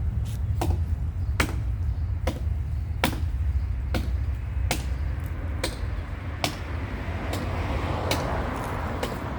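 Sharp knocks or clicks at a steady, machine-like pace of a little more than one a second, over a continuous low rumble. A wash of noise swells in the last couple of seconds.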